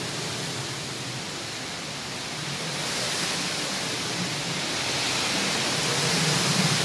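Hurricane wind and heavy rain: a steady rushing noise that grows louder in the second half.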